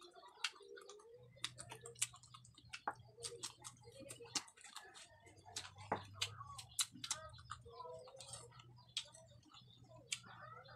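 Close-miked eating sounds: chewing and mouth smacks as papaya with chili-vinegar dip is eaten, heard as many irregular short sharp clicks, with a spoon working in a small bowl.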